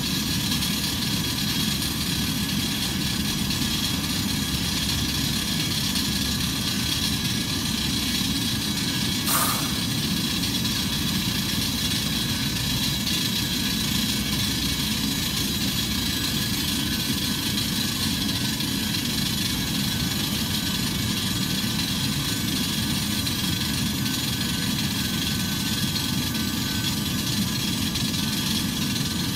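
Steady turbine whine over a low rumble from the parked Airbus A319 running at the gate. A single short click sounds about nine seconds in.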